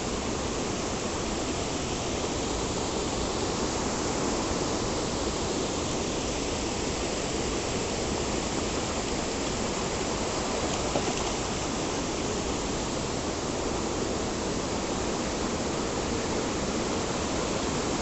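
Shallow stream rushing over rocks: a steady, unbroken wash of water noise.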